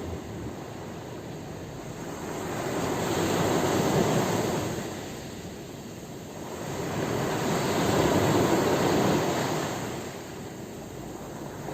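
Ocean waves breaking and washing in: two surges of surf noise, each swelling and fading over about four seconds.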